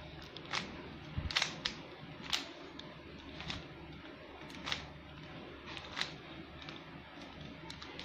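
Stickerless 3x3 Rubik's cube being scrambled by hand: its plastic layers click sharply at irregular moments, roughly once a second, as they are twisted.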